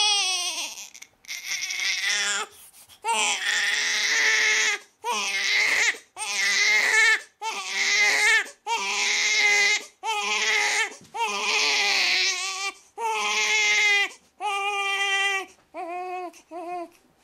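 A newborn baby crying: a string of about a dozen wails, each a second or so long, broken by short catches of breath. The last few, near the end, are shorter and quieter as the crying dies down.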